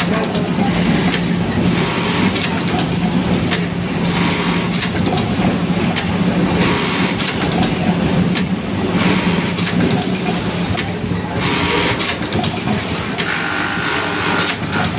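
JUKI computerised button-sewing machine working with an automatic button feeder, a steady hum under repeated short bursts of machine noise every second or two as buttons are fed and sewn on.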